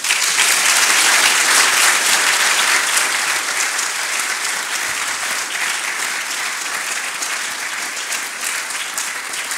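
Audience applauding, many people clapping at once. It starts suddenly, is loudest over the first few seconds, then slowly dies down.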